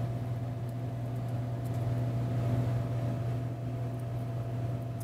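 Steady low machine hum with a constant pitched drone, with a few faint ticks of a marker tip on the sheet-metal panel.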